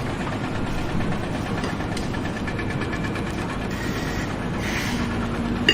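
Engine of a machine running steadily.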